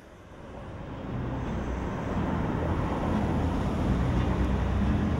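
City traffic ambience fading in over the first couple of seconds, a steady rumbling hum, with low held notes of music coming in underneath.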